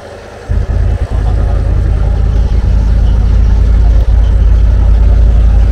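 Mahakam river taxi boat's engine running under way, a loud, steady low drone that comes up about half a second in.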